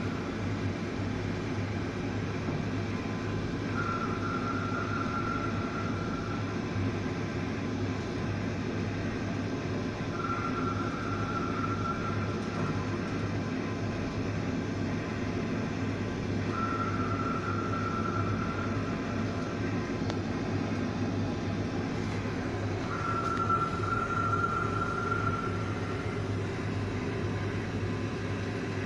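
Steady low drone of a fishing trawler's engine. Over it, a high tone sounds for two to three seconds about every six and a half seconds.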